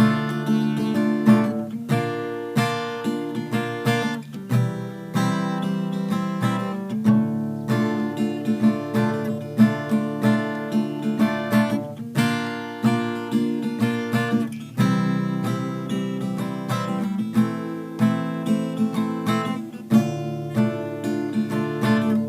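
Instrumental break in a song: a guitar strummed in a steady rhythm, with no singing.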